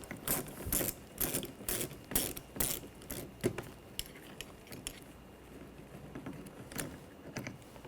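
Hand ratchet with a 7mm socket clicking as it backs a screw out, with quick repeated clicks for about three seconds, then a few scattered clicks.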